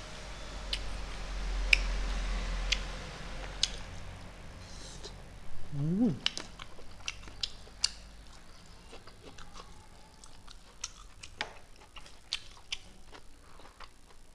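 Close-up eating sounds of a person chewing boiled beef and rice taken by hand: wet chewing with scattered sharp smacks and clicks of the lips and tongue.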